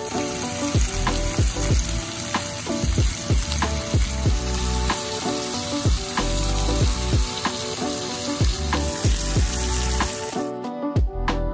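Steaks sizzling as they sear in melted butter with garlic in a hot skillet, a dense steady hiss that cuts off about ten seconds in. Background music with a steady beat plays underneath.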